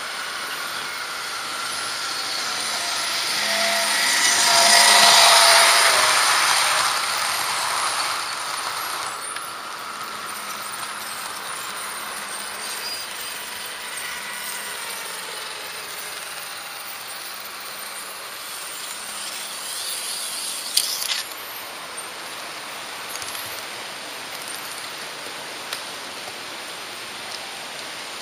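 H0-gauge model train running along its track: a steady whir and hiss of the small motor and metal wheels on the rails. It grows louder around five seconds in, and a few sharp clicks come about twenty-one seconds in.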